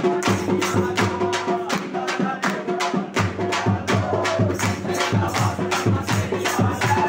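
Devotional music with a fast, steady percussion beat, and a crowd of devotees clapping along.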